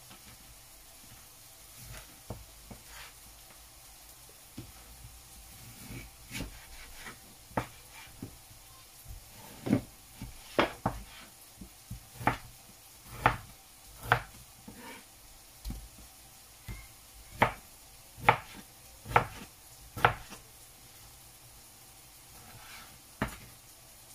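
Large kitchen knife chopping partly frozen chicken breast into cubes on a cutting board: a run of sharp knocks, roughly one a second. Under it is a faint sizzle of onions sautéing in oil in a pan.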